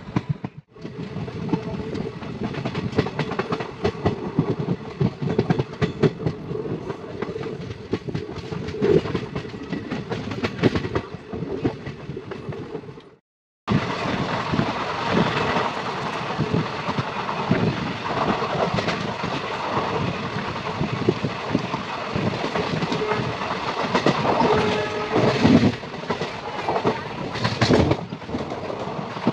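Railway train running along the track: wheels clattering over the rails with a continuous running rumble and many irregular knocks. The sound cuts out completely for under a second about thirteen seconds in, then carries on.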